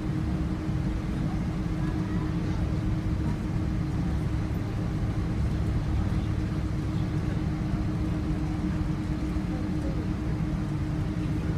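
Steady cabin noise of a Boeing 777-300 taxiing after landing: a low rumble from the engines and cabin air system with a steady hum over it.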